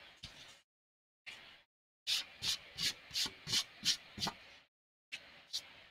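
Quick rubbing strokes on sketch paper: a few short scuffs, then an even run of about seven strokes at roughly three a second, then two more near the end.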